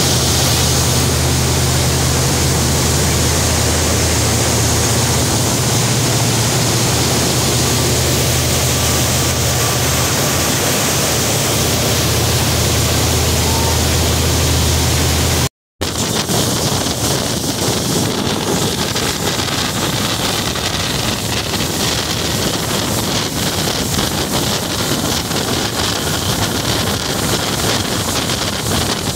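Cruise boat under way: a steady low engine drone over the loud rush of its churning wake. About halfway through there is a brief dropout, and after it the engine drone fades into the background while wind buffets the microphone over the rushing water.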